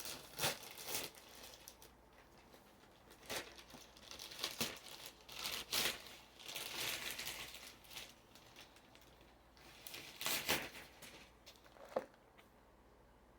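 Packaging crinkling and rustling in irregular short bursts as it is handled and pulled open, with a longer rustle around the middle.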